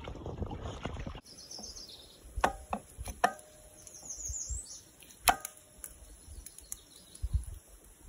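A rushing wind-and-water noise for about a second, then cuts off. A few sharp metallic knocks and clinks follow, some with a brief ring, as fish fillets are laid into a small frying pan resting on a steel fire grate, with no sizzle. Short high bird chirps come twice in between.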